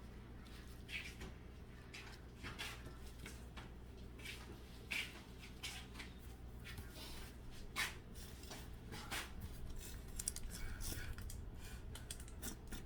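Irregular light clicks and knocks, one or two a second, over a low steady hum.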